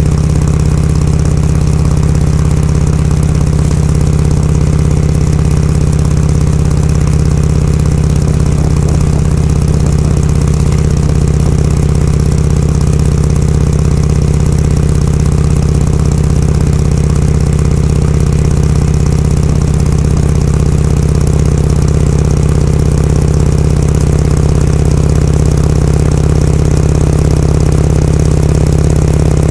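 Harley-Davidson Shovelhead FLH V-twin engine running at a steady, unchanging speed.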